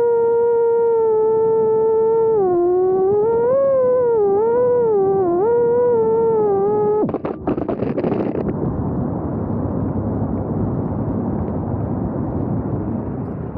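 Motors of a 4-inch FPV quadcopter whining in one steady pitch that dips and wavers as the throttle changes. About halfway through the whine cuts off suddenly and gives way to a steady rushing noise like wind.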